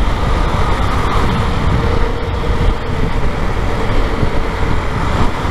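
Motorcycle running at road speed in traffic, its engine mixed with steady wind rumble on the microphone and the noise of surrounding cars.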